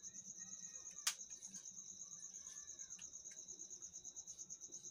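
Cricket chirping steadily, a fast-pulsing high-pitched trill, faint throughout. One sharp click about a second in.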